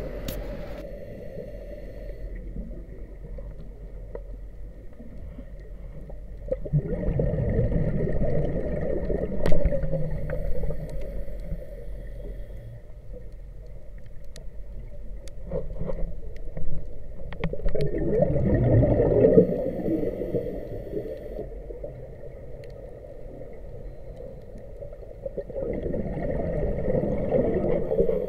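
Scuba diver's exhaled air bubbling out of the regulator underwater, three times, each lasting two to three seconds, with quieter breathing and a few sharp clicks in between.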